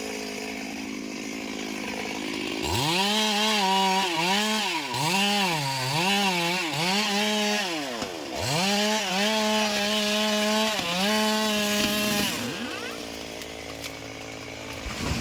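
Two-stroke chainsaw idling, then revved up about three seconds in to cut wood, its pitch dipping and recovering several times. It drops briefly near eight seconds, revs again, and settles back to idle about twelve seconds in.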